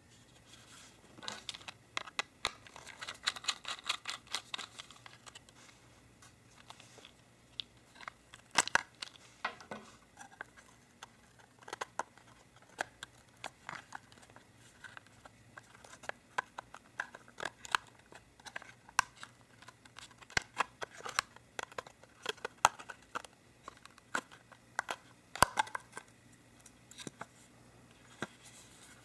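Plastic casing of a JBL Go Bluetooth speaker being pried and pulled apart by hand: a long run of sharp plastic clicks, creaks and crackles, with a dense cluster in the first few seconds.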